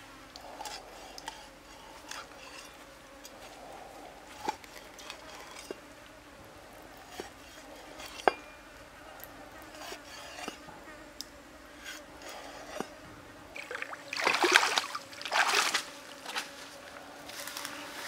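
A cleaver chopping a fish on a wooden chopping board, in scattered single knocks, over a faint trickle of stream water and buzzing insects. Near the end come two loud bursts of splashing water.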